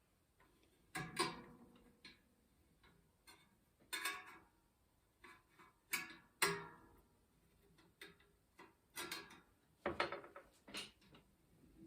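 Spoke wrench loosening the over-tight spokes of a bicycle front wheel in a truing stand: scattered, irregular metallic clicks and short pings.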